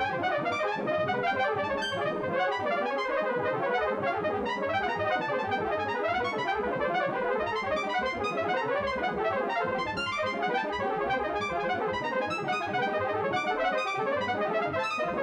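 MIDI French horn notes in a rapid, dense, irregular stream at many pitches. Each note's pitch and length are set by the size of one gap between consecutive prime numbers: larger gaps give higher, longer notes.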